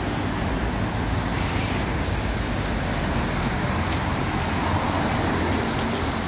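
Steady traffic noise on a rain-wet city street: passing cars making an even rumble and hiss.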